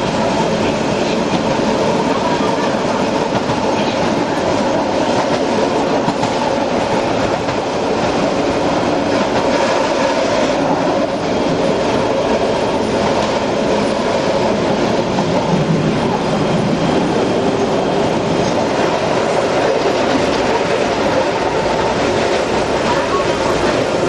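Keihan 600-series electric railcar running along the track, heard from inside the driver's cab: a steady, even noise of wheels on the rails and the car's running gear.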